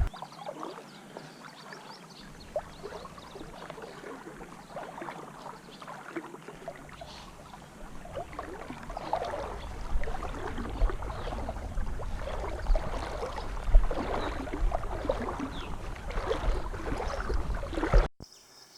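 Creek water sloshing and splashing irregularly as someone wades through it, busier in the second half, cutting off suddenly near the end.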